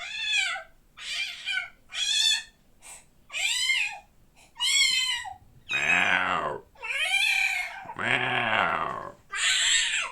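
A domestic cat meowing over and over: about seven short, high meows that rise and fall, roughly one a second. Around six and eight seconds in, two longer and much lower drawn-out calls answer them.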